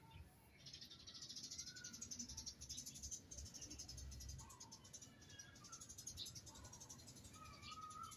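Jack Tzu puppies giving a few faint, short squeaks and whimpers, over a steady, fast, high-pitched pulsing trill.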